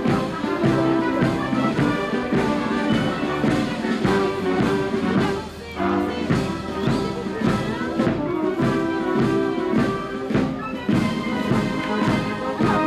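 Military marching band playing a march on brass and drums, with a steady drum beat under the brass.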